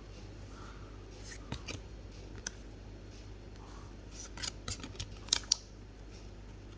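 Trading-card packaging being opened by hand: scattered sharp clicks and crackles of cardboard and wrapper, with a quick run of them about four to five seconds in.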